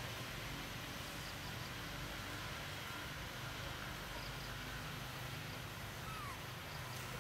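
Steady outdoor background noise with a faint low hum, and a faint short falling chirp about six seconds in.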